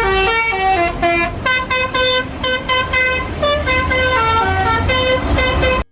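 Indonesian "telolet" bus horn playing a tune of quick, changing notes, several a second, then cutting off suddenly at the end.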